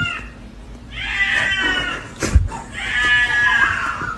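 A cat meowing in two long, drawn-out calls about a second each, with a short thump between them.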